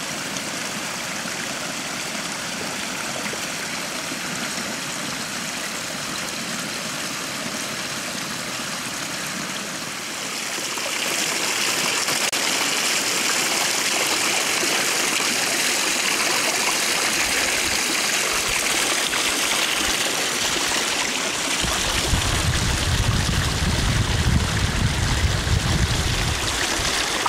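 Running water from a small spring-fed brook trickling through snow. About ten seconds in it turns louder and brighter: spring water splashing into an old enamel bathtub and spilling out through its drain. A low, uneven rumble joins near the end.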